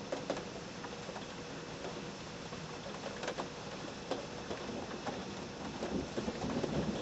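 Steady rain falling, with scattered drips ticking, during a night thunderstorm; a low rumble of thunder starts to build near the end.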